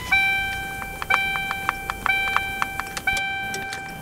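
Car's dashboard warning chime ringing once a second, four strikes that each fade away, with light clicks in between.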